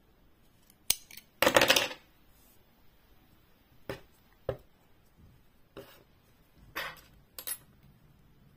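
Small thread snips cutting crochet cotton yarn, with a sharp click and then a short, rougher snip sound about a second and a half in. Several light clicks and knocks follow as the snips and crochet hook are handled on the table.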